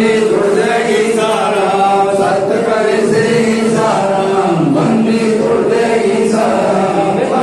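Male voices leading a group in chanting a devotional hymn, sung in long held notes that slide from one pitch to the next.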